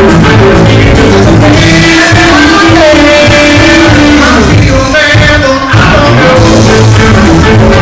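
Live rock band playing loud: a singer over electric guitar, keyboard and drum kit. The beat thins out for a few seconds in the middle and the full band comes back in near the end.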